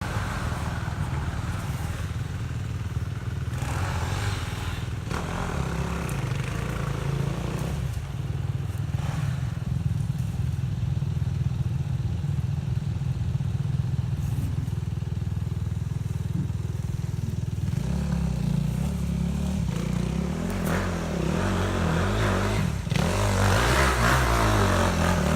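Off-road vehicle engine running steadily at low pitch; about two-thirds of the way through, its note starts to rise and fall.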